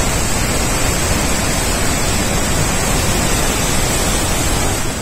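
Steady, loud roar of water pouring over Murchison Falls on the Nile: an even rushing hiss with no rhythm.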